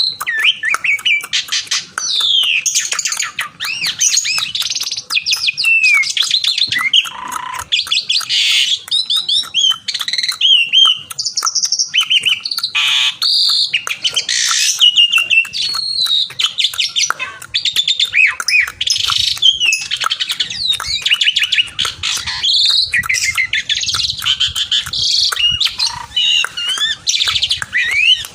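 Asian pied starling in full, vigorous song, used to challenge a rival bird. It keeps up an unbroken run of loud, varied whistles, sliding notes and rattling chatter.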